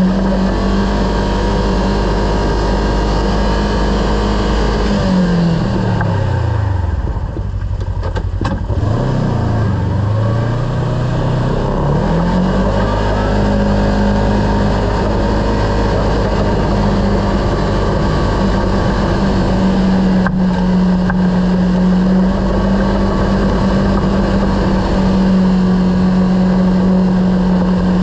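Kawasaki KRX side-by-side's parallel-twin engine running at a steady cruise; about five seconds in the revs drop away as the throttle comes off, then climb back up and hold steady again.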